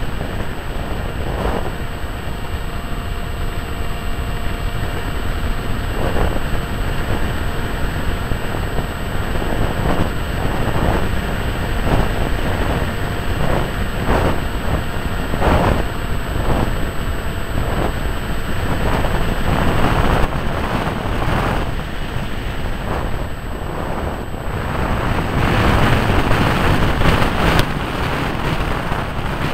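Wind rushing over the onboard camera's microphone of a HawkSky FPV radio-controlled plane in flight, with the steady drone of its electric motor and propeller underneath. The rush gusts louder near the end as the plane swoops low.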